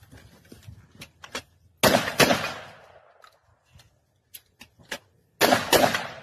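Shotgun fired twice in quick succession about two seconds in, each blast trailing off in echo, then fired twice more near the end. Small metallic clicks of the gun being handled and reloaded come between the pairs.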